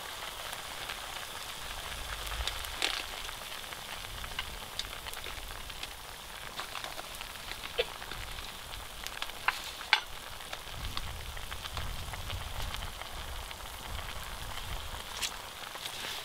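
Meat frying in fat over a fire: a steady sizzle with scattered sharp pops and crackles.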